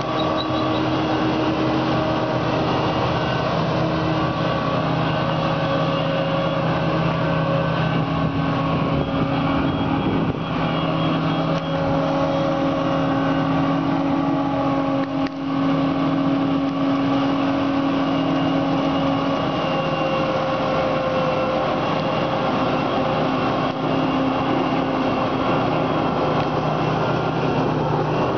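Self-propelled forage harvester chopping standing maize, its engine and chopper running in a loud, steady drone, with the tractor pulling the silage trailer alongside. The drone's pitch shifts slightly a couple of times as the load changes.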